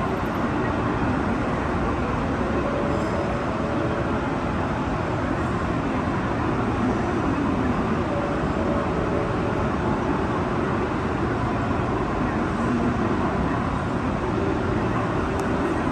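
Steady din of a large railway station: train noise mixed with distant crowd voices, with no single event standing out.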